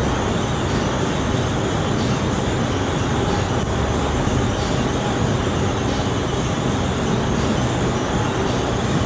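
Steady mechanical noise: a continuous rumble and hiss that holds even throughout.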